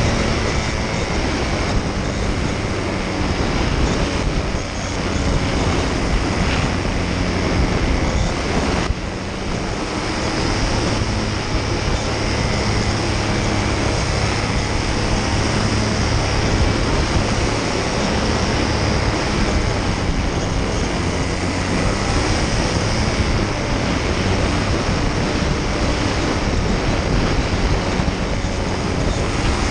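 Paramotor (powered paraglider) engine and propeller running steadily in flight, with wind noise, dipping briefly about nine seconds in.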